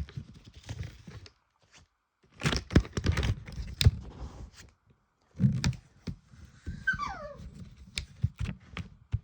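Clusters of knocks and rustling from handling things, and a dog giving one falling whine about seven seconds in.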